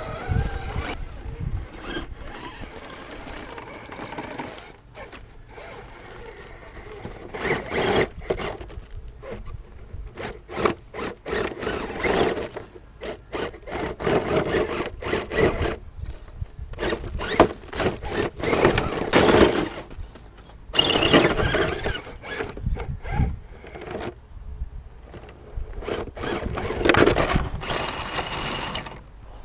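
Axial SCX10 RC crawler's electric motor and geared drivetrain whining in repeated short bursts as the throttle is worked, with occasional clicks and knocks.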